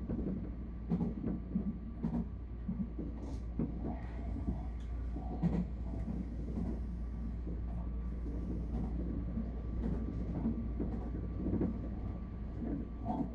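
Tobu 60000 series electric train running, heard from inside the front car: steady running noise with a faint steady whine and irregular clicks and knocks from the wheels on the track.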